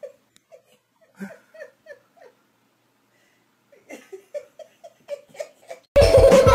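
A person giggling quietly in short breathy bursts, several a second, breaking off for about a second and a half midway, then starting again. Near the end a much louder sound cuts in.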